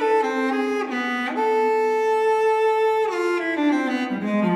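Solo cello music: a slow bowed melody that holds one long high note from about a second in to about three seconds, then falls step by step into the low register.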